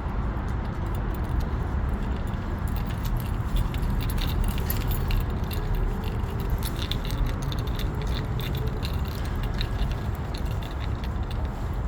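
Steady low rumble with many small, rapid clicks and jingles over it, like keys or loose metal rattling.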